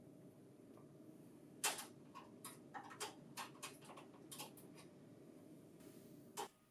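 Faint, quick run of small clicks and taps over about three seconds, starting just under two seconds in, with one more click near the end: the screw and lock of a printer's staple hole-punch finisher being removed by hand, over a low steady hum.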